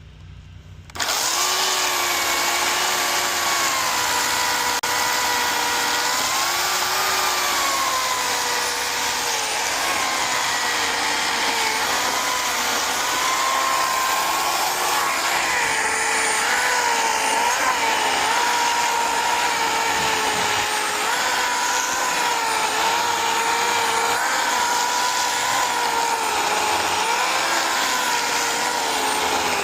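Chainsaw running at high speed while cutting wood, starting abruptly about a second in; its pitch dips and recovers as the chain bites into the wood.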